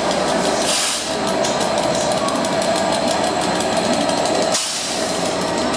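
EWS Class 67 diesel locomotive's two-stroke V12 engine running as the locomotive passes close by. It is a rapid, even clatter with a steady whine over it, and it eases briefly about four and a half seconds in.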